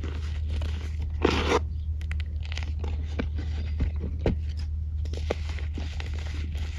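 Dry, reformed dirt crumbling and crunching in a bare hand, with irregular crackles as fine dust sifts through the fingers and a louder gritty rush of crumbling about a second in. Near the end a few sharper cracks come as a flat dried chunk is gripped.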